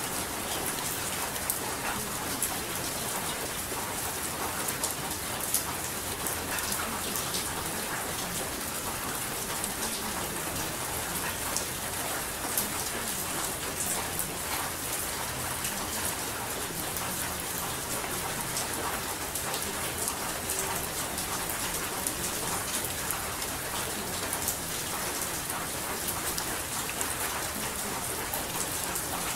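Steady rain falling on a surface: an even hiss with scattered drop ticks.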